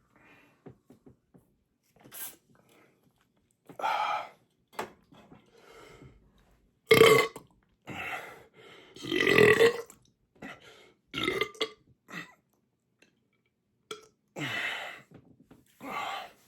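A man belching over and over from a stomach full of soda he chugged down: about six separate belches with pauses between them. The two loudest, and the longest, come about halfway through.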